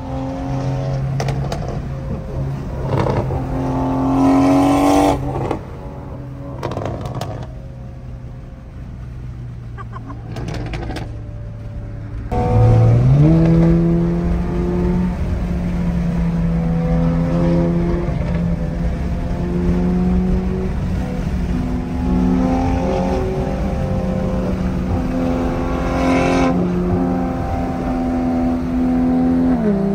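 Toyota GR86's flat-four engine heard from inside the cabin while driving, a steady drone that climbs in pitch as the car accelerates about twelve seconds in and then holds at the higher pitch.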